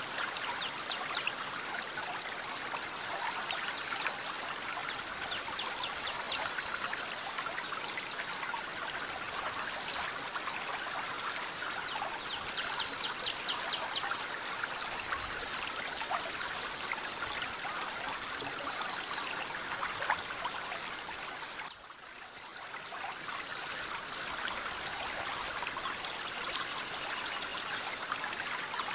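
Outdoor waterside ambience: a steady wash of water-like noise, with birds chirping now and then and short, rapid ticking trills.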